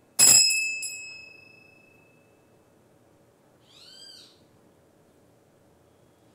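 Small altar bell struck at the elevation of the chalice, a bright ring of several high tones fading over about two seconds, with a lighter second strike just after. About four seconds in, a brief faint high call rises and falls.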